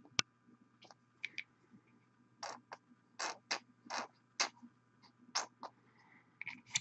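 Small handling noises of hobby painting with a paint bottle: a sharp click just after the start, then about eight short scratchy sounds spread over the next few seconds.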